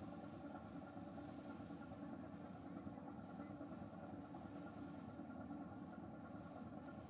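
Car ferry's engines droning steadily under way: an even low hum with several held tones, with wind on the microphone.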